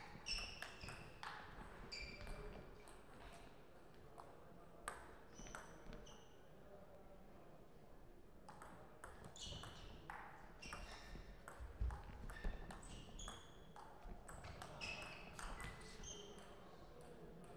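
Table tennis ball clicking off the rackets and the table in quick runs, each hit with a short high ping. It plays as two rallies, with a brief pause about seven seconds in.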